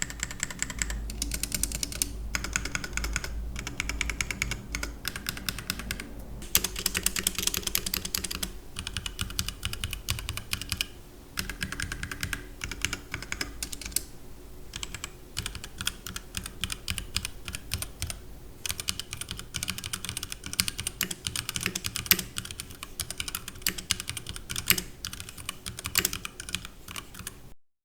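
Fast, continuous typing on a HyperX Alloy Origins 60 mechanical keyboard with HyperX Red linear switches, with a few brief pauses between bursts. The typing cuts off suddenly near the end.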